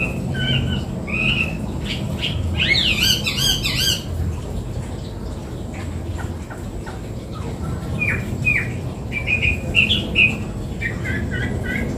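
Chinese hwamei (Garrulax canorus) singing: varied whistled phrases, with a fast run of high rising notes about three seconds in and more chattering phrases in the second half.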